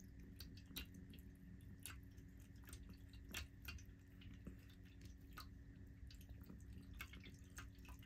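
Cat water fountain running: a faint trickle with irregular small drips, about one or two a second, as the stream from its spout falls onto the steel tray, over a faint steady hum.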